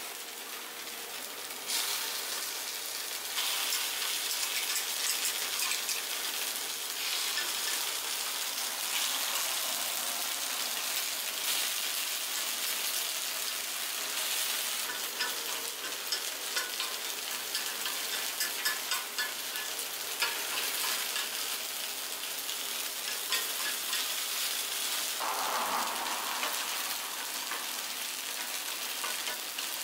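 Takoyaki batter sizzling in a cast-iron takoyaki pan while the balls are turned with metal picks, with light ticks of the picks against the iron.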